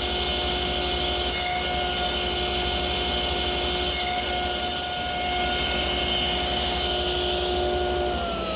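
Table saw running with a steady motor hum and whine while its blade nibbles away cypress on the cheek of an armrest tenon, cutting noise rising with each pass, most plainly around 1.5 s and 4 s in. Near the end its pitch starts to fall as the saw winds down.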